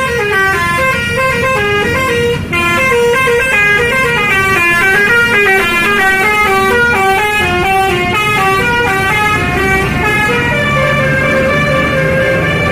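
Indonesian 'telolet' multi-tone bus horns playing a rapid tune of stepping notes over a low bus engine rumble, changing to longer held notes about ten seconds in.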